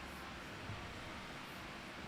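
Faint steady hiss of microphone background noise, with a slight soft bump a little under a second in.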